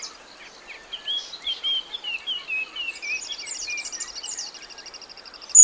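A bird giving a run of short, downward-sliding chirps, joined about halfway through by an insect's steady, rapidly pulsing high trill.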